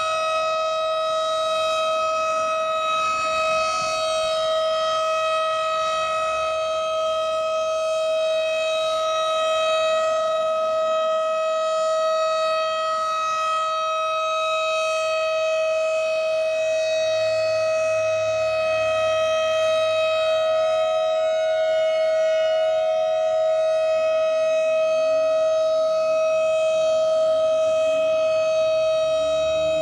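Federal Signal STH-10 dual-tone rotating outdoor warning siren sounding a steady chord at constant pitch, its loudness swelling slightly as it turns, during its monthly test.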